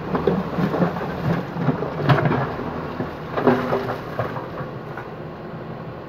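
JCB backhoe loader digging and lifting its bucket out of earth and rubble, its diesel engine running under load, with knocks and clatter of stones and broken brick over the first four seconds, loudest about two seconds in. After that only the steady rumble of the engine remains.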